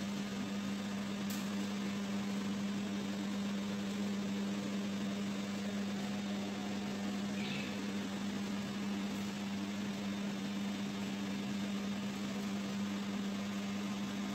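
Steady hum of a running machine, one constant low drone tone over an even hiss, with a faint brief chirp about seven seconds in.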